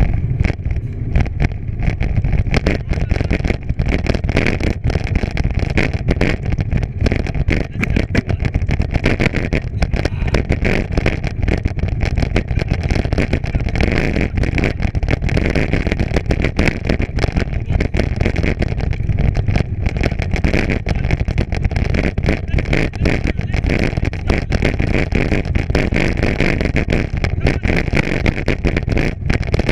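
Steady wind rumble buffeting the microphone, with tyre and trail noise from a bicycle rolling along under way.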